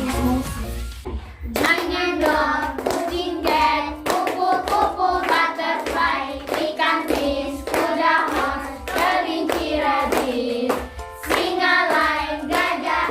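A group of children singing a song together, clapping along to the beat; the singing and clapping start about a second and a half in.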